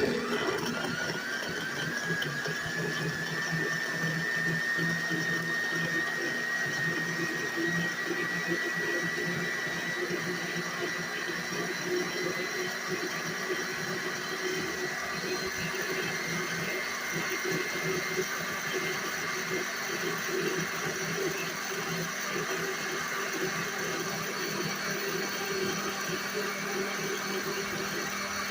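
Electric blender running steadily, grinding red onion and garlic with citrus juice and honey. Its motor whine climbs slowly in pitch over the first several seconds, then holds steady.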